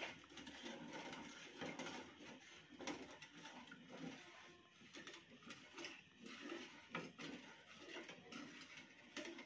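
Faint, irregular scraping and knocking of a wooden spoon stirring liquid agar-agar mixture in a metal saucepan.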